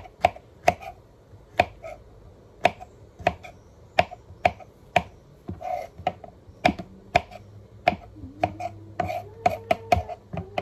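Small kitchen knife slicing button mushrooms on a plastic cutting board: a run of sharp, irregular knocks of the blade against the board, about two a second.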